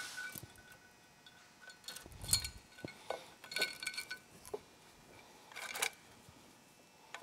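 Light metal-on-metal clinks and knocks, with one soft low thump about two seconds in, as the cylinder head of a Polaris Sportsman 850 twin-cylinder engine is handled and set down onto the engine block.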